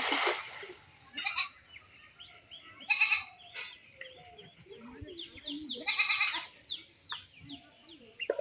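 A cast net splashes down onto a pond at the start. Bleating animal calls follow a few times, with small birds chirping quickly in the background.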